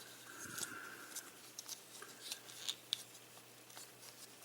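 Plastic parts of a Transformers Titans Return Misfire figure clicking and scraping as they are handled and forced through transformation: a string of irregular sharp clicks.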